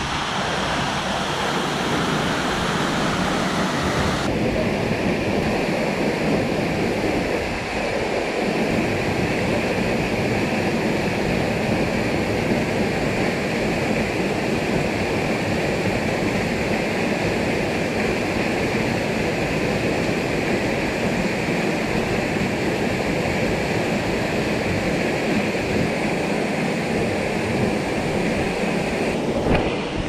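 Waterfall pouring into a rock pool, a steady rushing of falling water that changes abruptly in tone about four seconds in.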